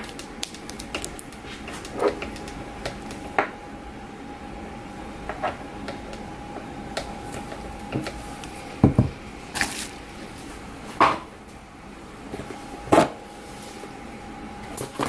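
Scattered clicks, taps and knocks of items and packaging being handled during unboxing, with the loudest knocks past the middle, over a faint steady hum.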